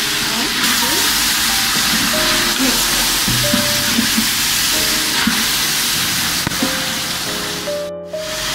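Chicken pieces frying with spices in hot oil in a large metal pot, sizzling steadily while being stirred with a wooden spatula. The sound cuts out briefly near the end.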